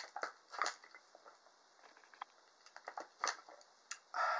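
A person drinking from a plastic bottle: scattered short clicks and gulping swallows, the sharpest at the start, then an exhaled breath near the end.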